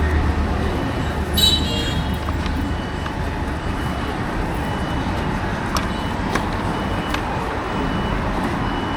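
Street ambience: steady traffic noise from passing vehicles, with a brief high squeal about a second and a half in and a faint high beep repeating every second or so.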